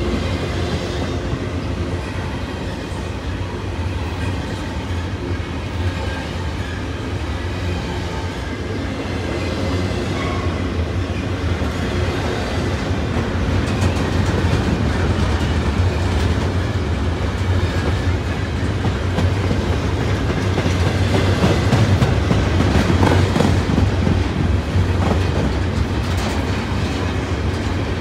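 CN double-stack intermodal freight train rolling past close by: a steady rumble of container cars, with wheels clicking over the rail joints. It grows louder through the second half.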